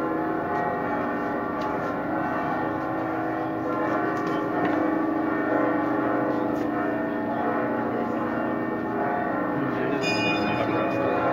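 Church bells pealing, several bells ringing together continuously.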